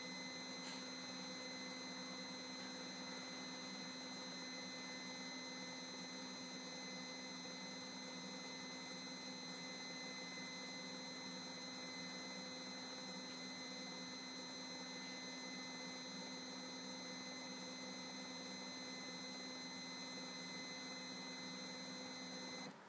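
Extruder stepper motor of a Rostock Max 3D printer running steadily through a 100 mm filament extrusion: a constant electric whine made of several steady tones, which cuts off suddenly near the end as the extrusion finishes. The drive rollers are grinding at the filament and feeding it unevenly.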